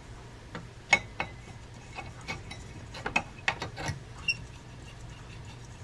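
A string of light, sharp clicks at uneven spacing, the sharpest about a second in and a quick cluster around three to four seconds in.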